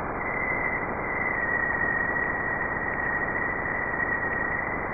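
Jupiter's polar radio emissions, recorded by a NASA spacecraft and converted to sound: a loud, heavy, rough crackling hiss that grows louder and softer, with a thin high whistle held through it that sinks slightly in pitch. The radio waves come from charged particles spiralling in Jupiter's magnetic field near its poles.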